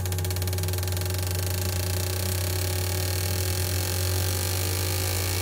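Fuel injectors on an injector flow-test bench clicking rapidly and evenly as they are pulsed in a dynamic flow test, over the steady hum of the bench's pump. Near the end some tones begin to rise in pitch.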